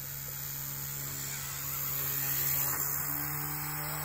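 Small radio-controlled helicopter's rotor and motor giving a steady hum that gets louder about halfway through as it comes in close and sets down on gravel.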